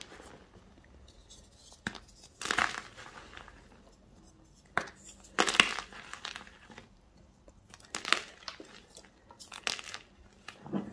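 Gym chalk (magnesium carbonate) pieces and powder crushed and crumbled between the fingers, in a series of short crunching bursts every two seconds or so, the loudest about halfway through.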